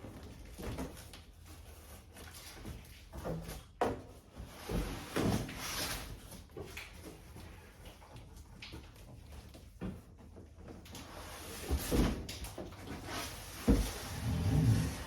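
Cardboard boxes being handled: irregular thumps, scrapes and rustles as a boxed microwave is worked out of a larger shipping carton.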